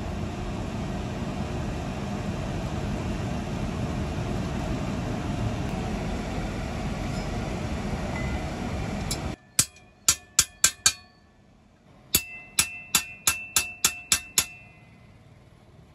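Steady seething, rushing noise of water boiling around a hot steel spade blade being quenched, cutting off suddenly about nine seconds in. Then sharp, ringing blows of a hand hammer on a steel punch driven into the blade on the anvil: a quick run of about five, a short pause, then about eight more.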